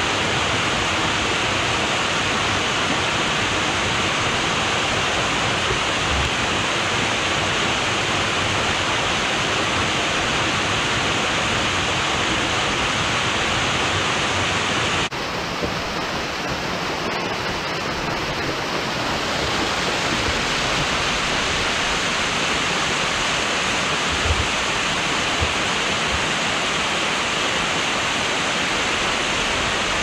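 Waterfall cascading over rocks: a steady, loud rush of falling water. A little past halfway the sound cuts and turns slightly duller, and a few low thumps hit the microphone near the end.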